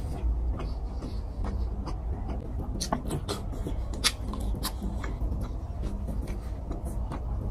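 Close-up hand-eating sounds: fingers squishing through rice and fish curry, then sharp wet mouth clicks and smacks as a handful is eaten and chewed. A low steady hum runs underneath.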